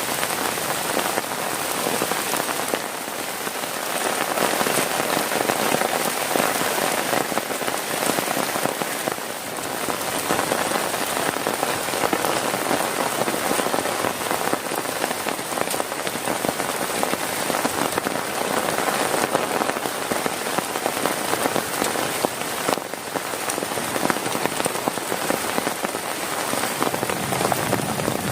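Heavy rain falling steadily on a plastic tarp over a tent: a dense, even hiss of countless drop hits.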